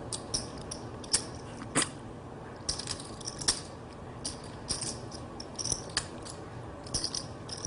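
Poker chips being handled at the table, clicking against each other in short irregular runs of sharp clicks.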